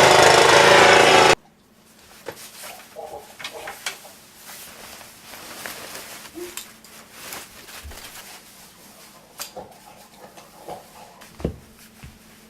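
Snowblower engine running loudly, cut off abruptly about a second in. Quiet clicks and handling noises follow over a faint steady hum.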